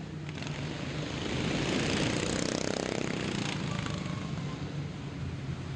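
Small single-cylinder engines of stock racing lawn mowers running on the track, one swelling louder as it passes about two to three seconds in.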